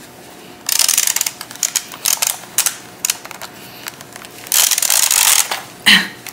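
Film rewind of a LomoApparat 35mm camera worked by hand, giving rapid rattling clicks in bursts of about a second with pauses between. The rewind is awkward to turn. There is a brief pitched sound near the end.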